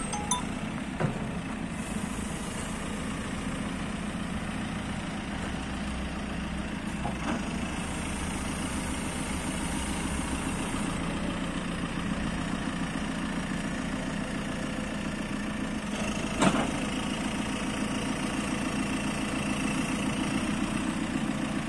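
JCB 3CX backhoe loader's diesel engine idling steadily, with a single sharp knock about three-quarters of the way through.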